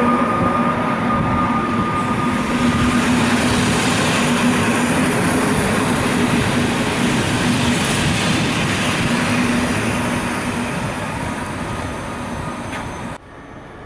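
PKP Intercity passenger coaches rolling past along the platform, a steady rumble of wheels and running gear with a low steady hum under it that fades out before the end. The higher tone from the locomotive just gone by dies away about a second in, and the sound cuts off abruptly near the end.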